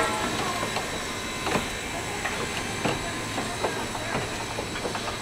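Excursion train's caboose and passenger cars rolling past, their wheels clicking irregularly over the rail joints above a steady hiss.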